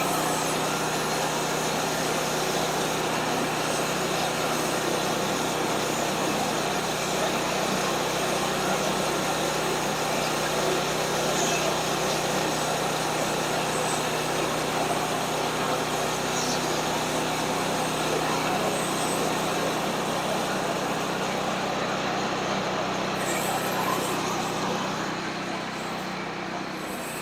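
Portable band sawmill running steadily while cutting: the mill's small gas engine drives the band blade through a log. The sound eases slightly near the end.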